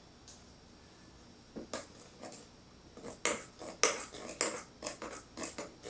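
Metal spoon stirring thickened, reducing milk in a pot, clinking and scraping against the pot's sides. The strokes start sparsely about a second and a half in and come quicker and louder from about halfway.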